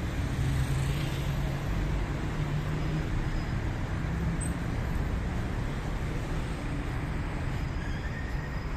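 Steady city street traffic: car engines and tyres running along a busy boulevard, with one engine's low hum standing out in the first few seconds.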